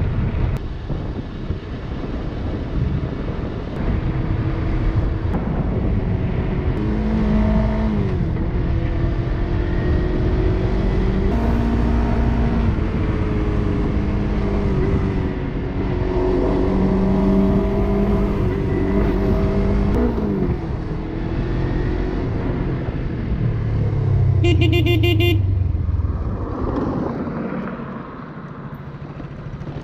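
Motorcycle engine running under way, with wind noise on the microphone; its pitch climbs and drops in steps with throttle and gear changes. A horn toots briefly near the end.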